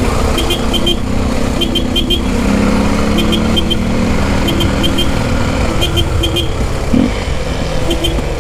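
Honda XR 250 Tornado's single-cylinder engine running while riding slowly in traffic, with wind rumble on the microphone. Over it, short electronic chirps come in threes about once a second.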